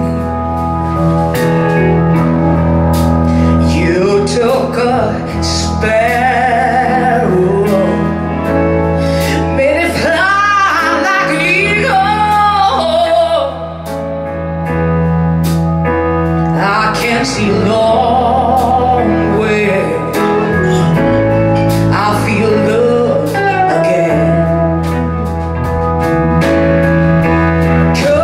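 Live soul-blues band (keyboards, electric guitar, bass guitar and drums) playing a slow ballad, with a woman singing over it in stretches.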